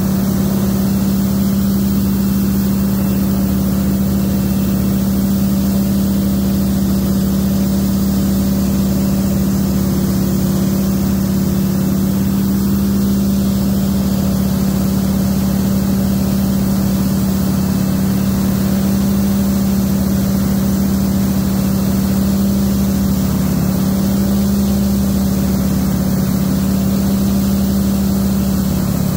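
Steady drone of a T-6 Texan's Pratt & Whitney R-1340 Wasp radial engine in cruise flight, heard from inside the cockpit, with a constant low hum and slipstream noise.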